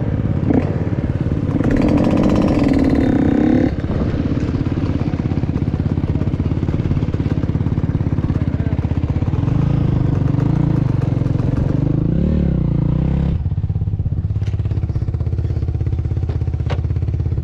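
Dirt bike engine running as it is ridden slowly across a field. It rises in pitch and loudness for a couple of seconds early in the ride, pulls harder again around ten to thirteen seconds, then drops to a lower, steady run near the end.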